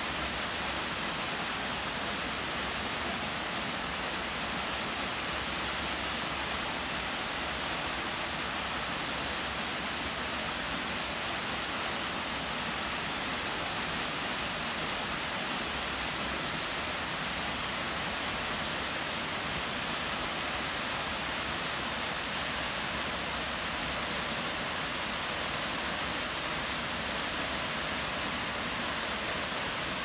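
Nunobiki waterfall rushing steadily, an even hiss of falling water with no change.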